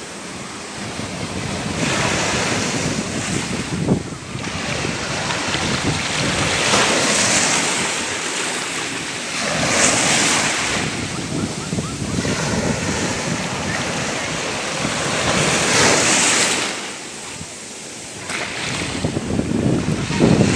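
Ocean waves breaking on a shore: surf washing in and drawing back, swelling and falling every few seconds, with a short lull near the end before another wave breaks.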